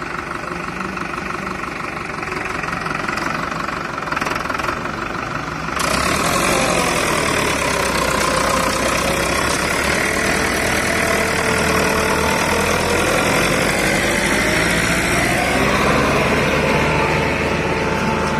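Farmtrac 6055 PowerMaxx tractor's diesel engine running steadily, then about six seconds in it suddenly gets louder as it takes up work. From there its pitch sags and recovers as the load changes.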